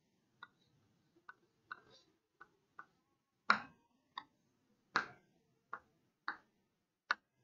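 Chalk tapping against a chalkboard as short lines are drawn: about eleven sharp, irregular taps, the loudest about three and a half and five seconds in.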